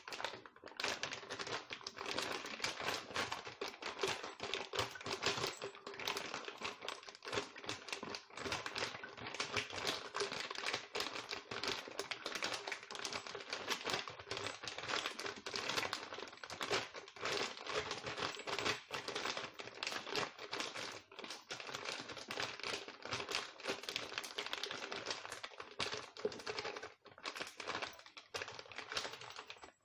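Peeled prawns being dropped by the handful into a tall clear plastic jar: dense, continuous crackling and clicking as they land on the plastic and on one another, with plastic rustling.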